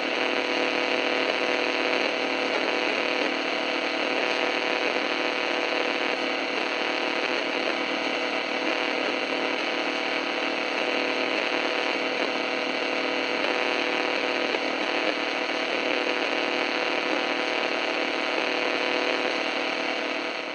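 Radio static: a steady hiss with a buzzing hum of many steady tones running through it, the sound of radio interference.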